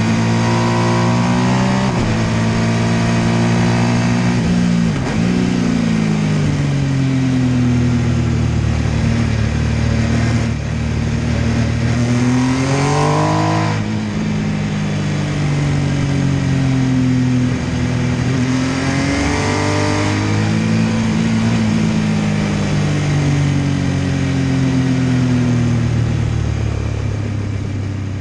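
MV Agusta F3 800's three-cylinder engine under way, its pitch rising and falling as it accelerates and shifts, with a couple of hard climbs in revs partway through.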